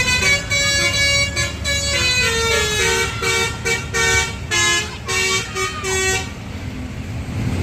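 Bus telolet horn, a Basuri multi-tone air horn, playing a stepping melody of short and held notes over the rumble of the bus engine. The horn stops about six seconds in, leaving the engine running.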